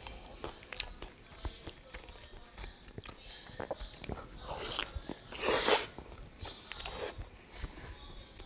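Close-up chewing and biting of a soft, charred-tortilla steak taco, with small wet mouth clicks and smacks throughout. One louder noise, about half a second long, comes about five and a half seconds in.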